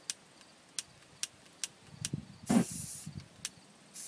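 Aerosol spray can hissing in two short sprays, one of about half a second about two and a half seconds in and another near the end, with faint clicks about twice a second.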